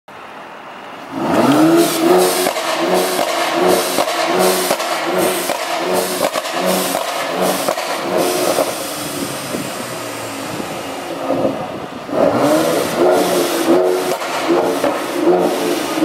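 Renntech-tuned 2018 Mercedes-AMG C43's twin-turbo V6 revved in quick throttle blips about twice a second, each rising and falling in pitch, with crackles and pops from the exhaust. It starts about a second in, eases off for a few seconds past the halfway mark, then picks up again.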